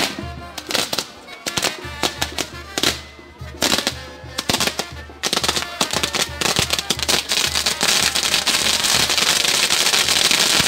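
Fireworks tower (castillo) burning: scattered firecracker bangs, then from about five seconds in a dense, unbroken crackling and hissing of its fireworks.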